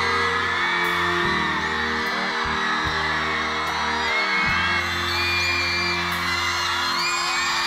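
Slow background music with long held chords, under a crowd of fans screaming and cheering in high-pitched voices.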